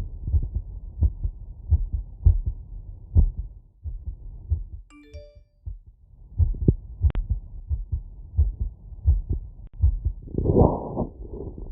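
Heartbeat heard through a stethoscope after physical exertion: a steady train of dull low thumps. The beats fade for a moment about four seconds in, while a brief chiming tone sounds. About ten seconds in comes a louder scratchy noise.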